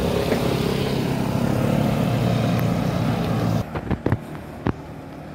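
A motor vehicle engine running steadily, loud and close. It cuts off abruptly about three and a half seconds in, leaving quieter outdoor background with a few sharp taps.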